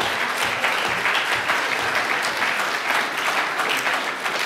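Audience applauding, a dense steady clatter of many hands.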